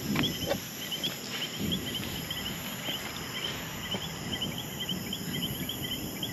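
Night chorus of insects: many short chirps overlapping at an uneven pace, over a steady high-pitched drone. There is a little rustling of movement through grass near the start.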